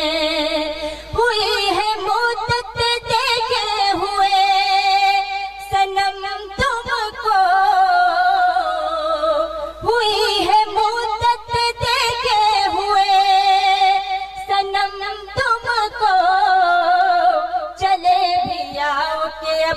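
A woman singing Urdu poetry in tarannum, the melodic style of mushaira recitation, amplified through a stage microphone. She draws out long, wavering held notes and gliding phrases with brief breaths between them.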